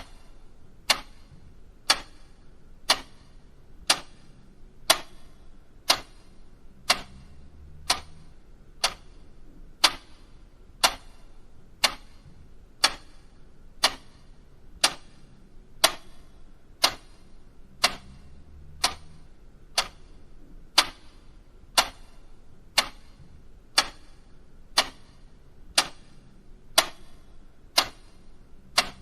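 Mechanical clock ticking steadily, about one sharp tick a second.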